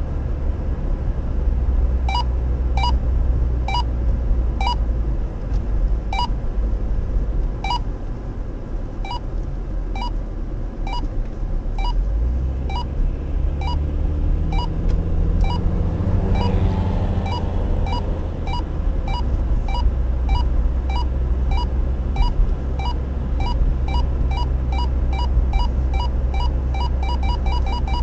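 Neoline X-COP 7500s radar detector beeping a K-band alert: short beeps about two seconds in, spaced about a second apart, coming faster and faster as the signal strength climbs, the sign of closing in on the K-band radar source. Under it, the steady rumble of the car heard inside the cabin.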